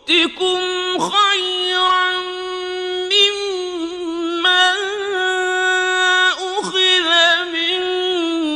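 A man chanting Quranic verses in the melodic tajwid style, drawing out long held notes with wavering ornaments and only brief breaks for breath.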